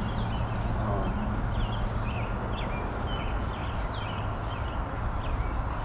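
Birds chirping, short calls repeating over and over, over a steady low background rumble.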